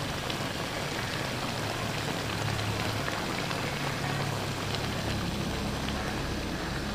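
Chicken pieces and tomatoes sizzling and bubbling in an uncovered pot over a high flame, a steady crackling hiss while the tomatoes give up their water.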